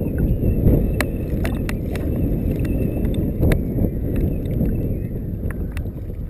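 Wind buffeting the microphone in a steady low rumble, with choppy lake water lapping and slapping against an inflatable float tube and scattered sharp ticks.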